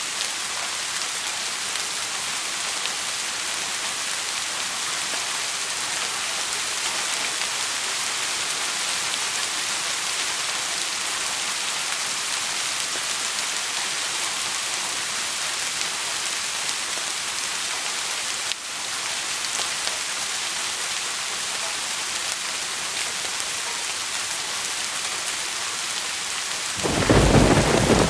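Steady rain falling, an even hiss. About 27 seconds in, a loud low roll of thunder begins and is still rumbling at the end.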